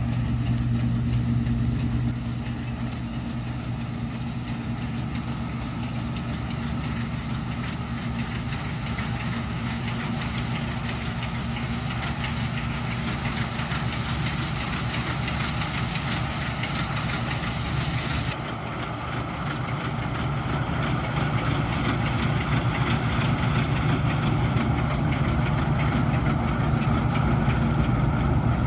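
Farm harvesting machinery's engine running steadily, a low even hum under a hiss of working noise. The high hiss drops away abruptly about eighteen seconds in.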